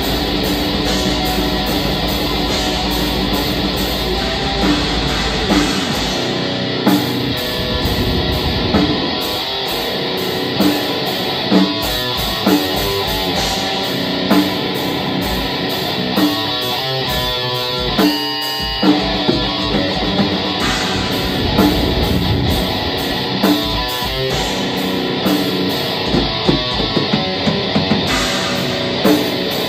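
Black metal band playing live: distorted electric guitars over a drum kit. About six seconds in, the steady low drone gives way to separate, evenly spaced drum hits, with a brief thinner break near the middle.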